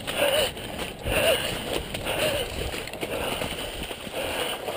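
Footsteps sloshing and splashing through shallow swamp floodwater and wet leaf litter, in an uneven walking rhythm.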